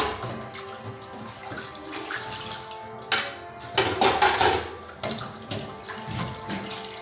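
Water running into a metal basin in a steel kitchen sink while plates are rinsed by hand, with louder splashing surges about three and four seconds in.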